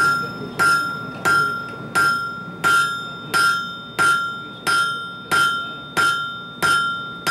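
Blacksmith's hand hammer forging a red-hot bar on an anvil in a steady rhythm, about three blows every two seconds. Each blow leaves a high ring that fades before the next.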